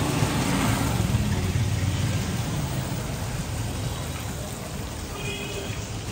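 A motor vehicle's engine rumbling close by with street noise, loudest in the first two seconds and then slowly fading.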